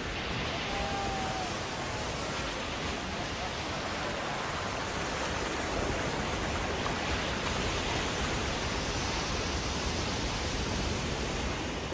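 Ocean surf: a steady, unbroken rush of breaking waves.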